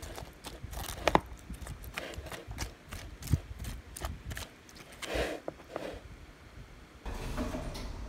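A metal fork tossing shredded cabbage with mayonnaise and ketchup in a plastic container: irregular clicks and scrapes of the fork against the tub and the crisp leaves. About seven seconds in it gives way to steadier background noise.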